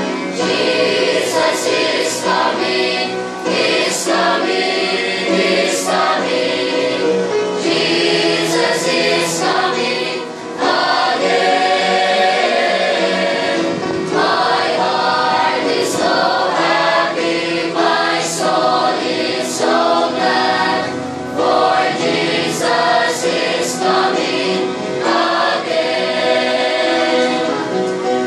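A church choir of young men and women singing a gospel hymn together, with short breaks between phrases about 10 and 21 seconds in.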